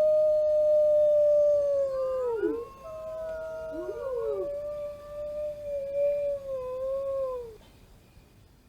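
Wolves howling in chorus: long held howls with a higher voice crossing over a lower one, each howl sliding down in pitch as it ends. The chorus dies away near the end.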